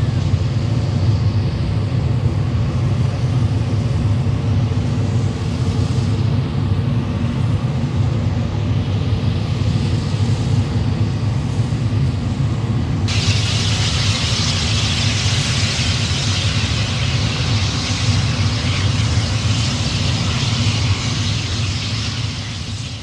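Steam locomotive 5910 venting steam in a loud, steady roar, a deep rumble under a broad hiss. About halfway through, the hiss turns suddenly louder and sharper.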